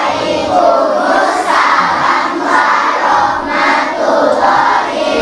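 A large group of children singing and chanting loudly together in unison, the voices swelling in a regular beat a little under twice a second.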